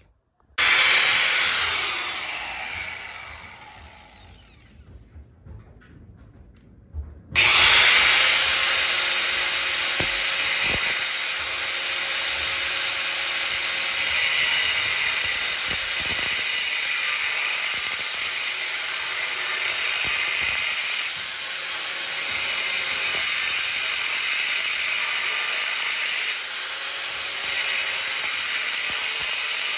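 Angle grinder cutting metal tabs off a dirt bike frame: it runs briefly just after the start and winds down over a few seconds, then about seven seconds in it starts again and cuts steadily with a loud, hissing grind.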